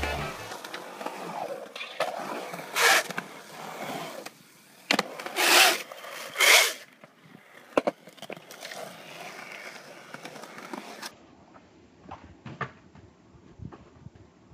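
Skateboard wheels rolling and scraping over concrete, with a few loud rushes of noise and a sharp knock about halfway through. Near the end it turns quieter, with scattered small knocks.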